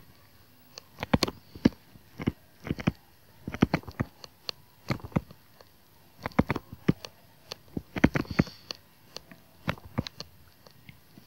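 A stylus tapping and scraping on a tablet screen during handwriting: a run of small, sharp clicks in irregular clusters.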